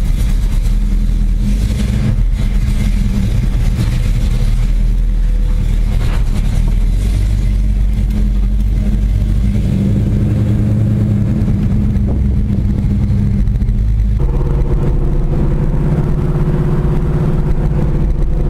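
1972 Pontiac Firebird driving, its engine running steadily under road noise. The engine note changes suddenly about fourteen seconds in.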